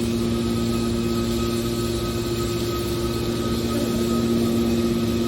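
Car shear baler running: a steady machine hum with constant tones, slightly louder about four seconds in.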